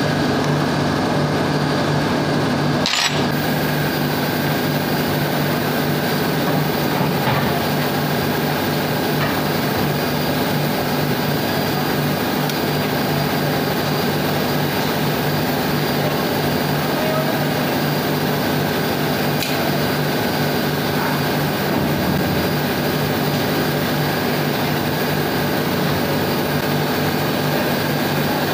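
Steady, loud drone of marine diesel engines running in a ship's engine room, with a constant low hum and a higher whine. A single sharp metallic knock comes about three seconds in.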